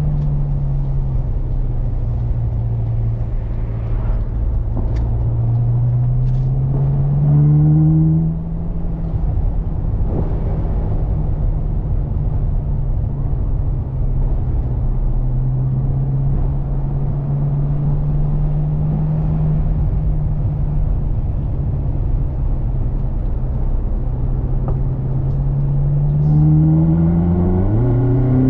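Ferrari California's V8 driving at moderate speed with a steady low engine note and wind rushing past the open cockpit. About seven seconds in the note climbs under throttle and then drops sharply at a gear change. It climbs again under acceleration near the end.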